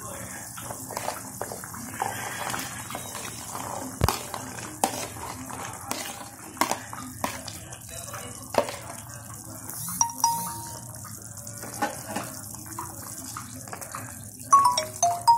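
Metal spoon clinking and scraping against a plastic container as cut green beans are pushed into a pan of soup broth, then a ladle stirring through the liquid, with splashes and knocks against the pan. A few short ringing clinks stand out, one about two-thirds through and several near the end.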